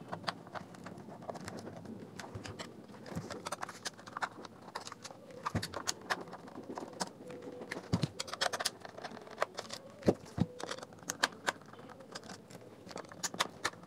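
Irregular clicks, taps and scrapes of a thin metal pry tool working against the hard plastic housing of a JBL Xtreme speaker while its end cap with the passive bass radiator is pried loose. The loudest knocks come about two thirds of the way through.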